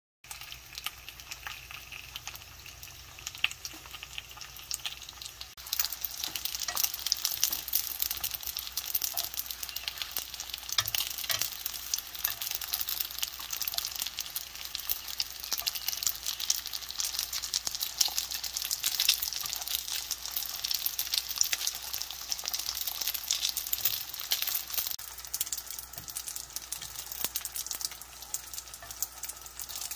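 Daegu-style flat dumplings (napjak mandu) pan-frying, with a steady sizzle and many small crackling pops. The sizzle grows louder about six seconds in.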